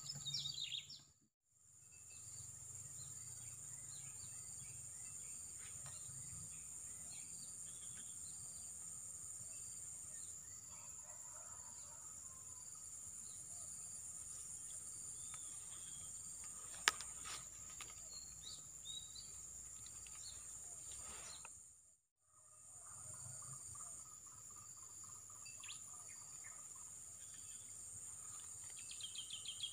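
Steady, high-pitched drone of insects with scattered bird chirps. There is a single sharp click about two-thirds of the way through and a quick run of chirps near the end. The sound cuts out briefly twice.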